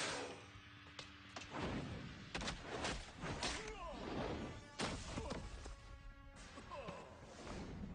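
Fight-scene soundtrack: a fast string of hit and impact sound effects, with whooshes, over background music.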